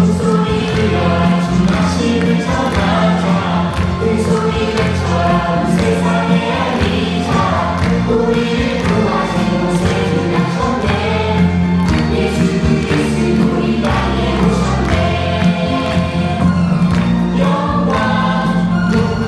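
A church praise team choir singing a worship song with instrumental accompaniment: a steady bass line and a regular beat under the voices.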